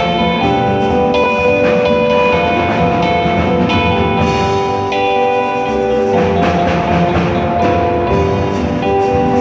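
Live gospel band music: long held chords over drums and hand percussion.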